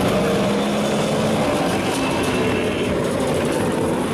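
Steady mechanical rumble with a faint low hum running under it.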